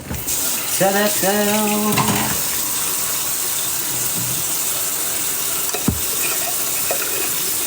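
Steady rushing hiss in a kitchen that starts suddenly, like a tap running or food sizzling in a pan. A man's short voiced sound comes through it about a second in.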